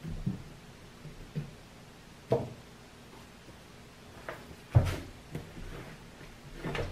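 A few light knocks and taps from objects being handled on a tabletop, the loudest a little under five seconds in, over a quiet room.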